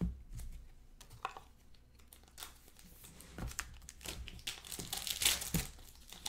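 Foil trading-card pack wrappers crinkling and tearing open, with scattered light clicks of cards being handled; the longest, loudest crinkling comes about five seconds in.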